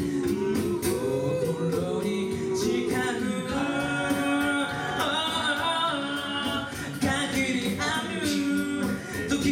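Male a cappella group singing in close harmony through microphones, holding chords that change every second or two, with vocal percussion keeping a steady beat underneath.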